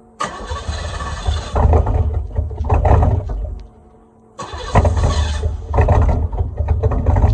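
1992 Cadillac Eldorado's 4.9-litre V8 revved through its muffler-deleted exhaust: a sudden loud, rough burst of revs that rises and falls several times. It drops back to idle for a moment about halfway, then revs again in a second string of blips.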